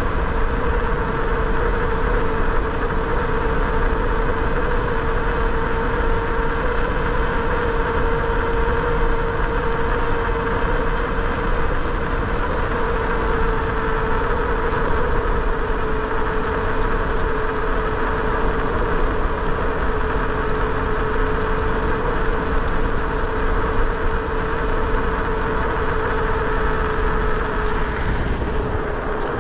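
Bafang G62 1000 W hub motor, driven by a Flipsky 75100 controller, whining steadily at riding speed, its pitch easing slightly near the end, over wind and tyre noise.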